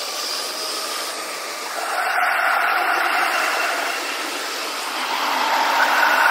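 JR commuter electric trains, a Keihin-Tohoku Line set followed by Yamanote Line sets, running past on the tracks, with the recording sped up six times. It is a steady rushing noise that swells twice.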